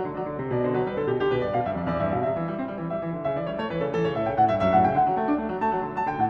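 Background piano music: a continuous run of notes at an even level.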